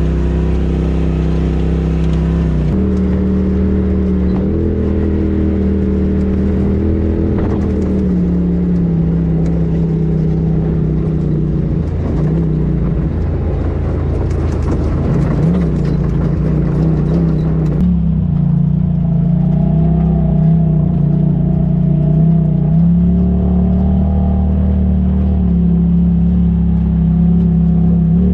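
Polaris RZR side-by-side engines running under steady throttle over a dirt trail, heard from inside the open cab, the pitch drifting gently with speed. The sound changes abruptly about three seconds in and again about eighteen seconds in, where the footage cuts from one machine to another.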